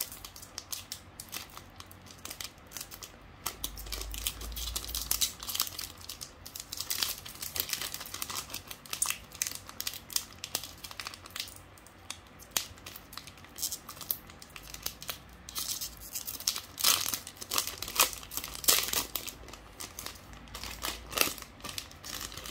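Foil wrapper of a Pokémon trading-card booster pack crinkling and tearing as it is worked open by hand, in irregular crackles that come loudest in a cluster late on.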